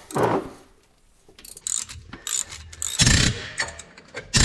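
Ratchet wrench, extended with a pipe for leverage, clicking as it works the tight 13 mm twelve-point bolts that hold a front wheel bearing to the steering knuckle. About three seconds in there is a loud sharp crack as a seized bolt gives, and another near the end.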